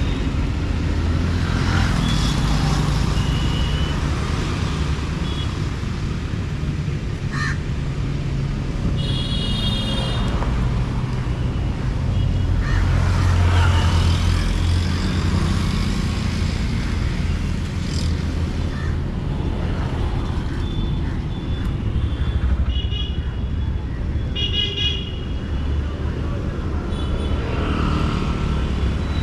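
City road traffic: engines and tyres of passing vehicles make a steady rumble. Vehicle horns honk about a third of the way in and again a couple of times near the end.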